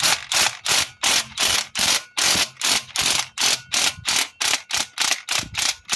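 Hand ratchet wrench worked quickly back and forth on a water pump bolt, clicking in short even bursts about three times a second, then stopping suddenly.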